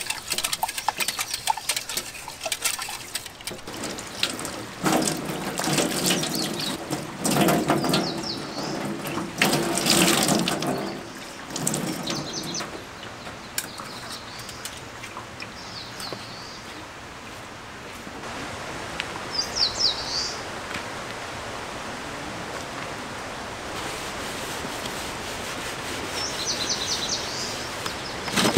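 Tap water running into a campground washing sink. For the first dozen seconds it splashes unevenly with light clatters as things are rinsed under it, then it settles into a steady stream. Birds chirp briefly a few times.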